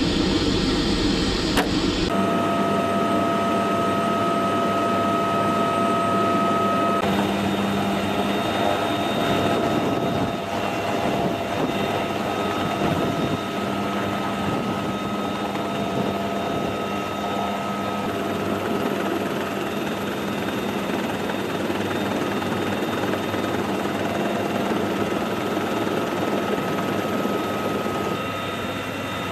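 Bell UH-1Y Venom helicopter running: a steady turbine whine over continuous engine and rotor noise, with an abrupt change in the sound about two seconds in. No gunfire.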